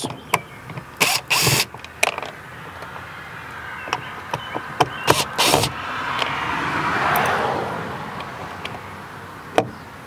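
Screws being backed out of the interior door-handle recess with a screwdriver: scattered clicks of the bit and screws, with two short loud bursts about a second in and about five seconds in. A passing vehicle swells and fades in the middle, and there is a sharp click near the end.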